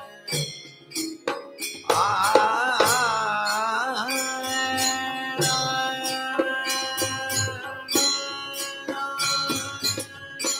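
Indian devotional song (prabhati): a voice rises into an ornamented, wavering phrase about two seconds in, then holds long steady notes. A string instrument accompanies it, and sharp metallic clicks from small hand cymbals keep a steady beat throughout.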